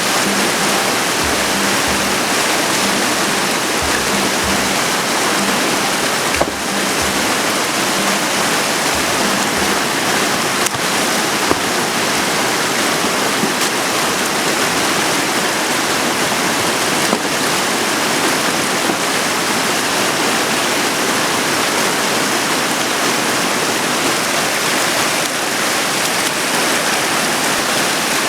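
Mountain river rushing, a loud, steady wash of running water.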